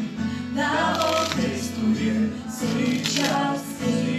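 Background music with a singing voice.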